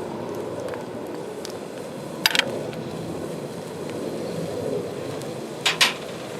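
Steady low rushing noise with two sharp double clicks, one about two seconds in and one near the end.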